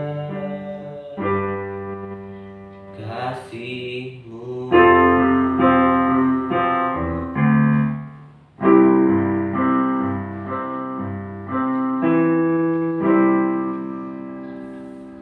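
Electronic keyboard in a piano voice playing slow, sustained chords without singing, the chord changing every second or few and dying away near the end.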